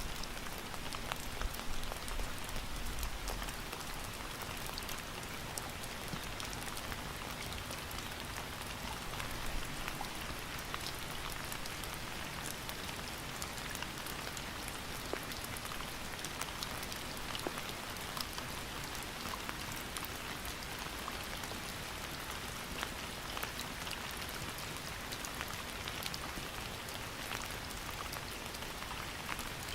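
Steady rain falling on a surface, a dense even hiss with many distinct drop ticks throughout.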